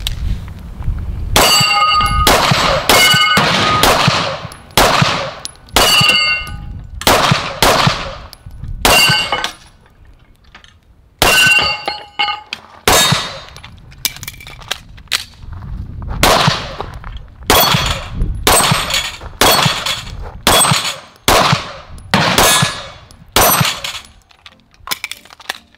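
Pistol fired in a long string of shots, roughly two a second with a short pause about ten seconds in. Many shots are followed by the clang and ring of steel plates being hit.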